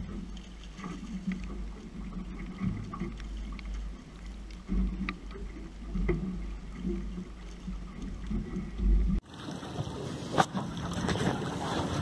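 Wind rumbling on the microphone and water noise around a small fishing boat, with a few sharp knocks of gear against the boat. About nine seconds in the sound cuts abruptly to a more even rush of wind and water.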